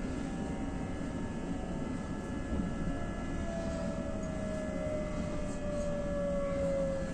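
Steady low rumble inside a moving passenger train's carriage as it rolls along the platform, with a faint whine that slowly falls in pitch over the second half.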